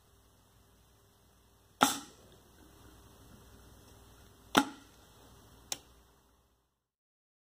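Three sharp bursts from a vertical dust-test tube as a dust sample is puffed past its glowing ignition element: two loud pops, each with a short tail, a few seconds apart, then a smaller one about a second later.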